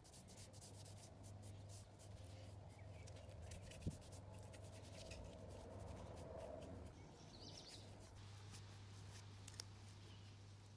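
Faint rubbing and light scuffing of a sponge wiping oil finish onto bare wood, over a low steady hum, with a single sharp click about four seconds in.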